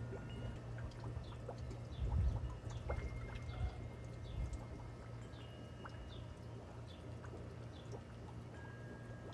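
Water trickling and splashing, with small birds chirping in short falling notes and a steady low hum underneath.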